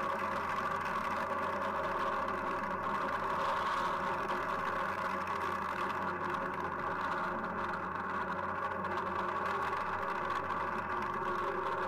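Steady roar of the Falcon 9 rocket's first-stage engines during ascent, heard through the launch broadcast audio.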